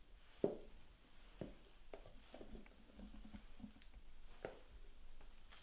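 Faint wet squishing and scraping as a thick ricotta-cream mixture is scraped from a plastic bowl with a spatula into a lined mould, with a few soft knocks.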